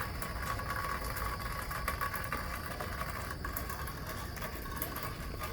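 Rain falling steadily during a thunderstorm: a dense patter of drops over a low, even rush.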